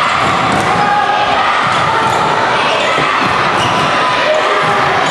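A basketball bouncing on a hardwood gym court during live play, with people's voices carrying in the big, echoing gym.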